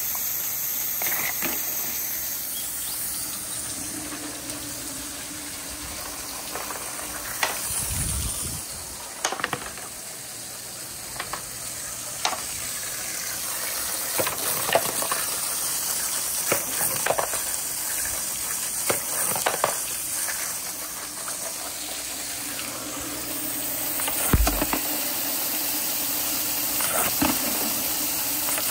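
Water rushing steadily down plastic rain gutters and a slide in a water marble run, with wooden balls knocking and clacking against the gutters now and then as they are carried along.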